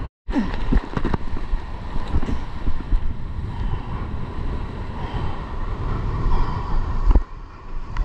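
Strong gusty wind buffeting the microphone over waves breaking and washing, with a brief cutout just after the start.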